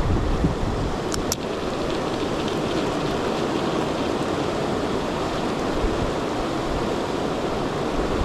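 Rushing river water, a steady, even noise, with two sharp clicks a little over a second in.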